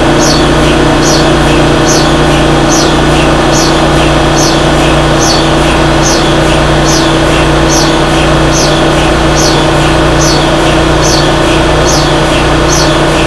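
Steady, loud electric-motor hum of a 10 kW-class HTS DC induction heating machine, its drive motor spinning an aluminium billet inside the superconducting magnet's field, with short high chirps repeating just under twice a second.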